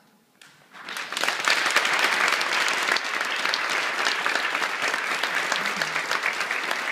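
Audience applauding: dense, steady clapping that starts about a second in.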